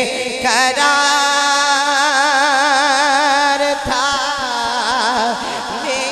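A solo voice sings a line of Urdu devotional poetry, holding one long note with heavy vibrato and then moving into a second wavering phrase about four seconds in.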